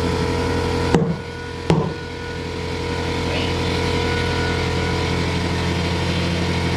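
A motor or engine running with a steady hum, broken by two sharp clicks about a second apart near the start.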